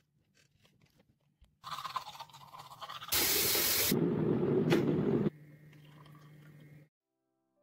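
De'Longhi electric kettle coming to the boil with a rising rushing hiss. The hiss is loudest for about two seconds, with a click near the middle. Then a quieter steady pour of hot water into a glass mug follows for about a second and a half.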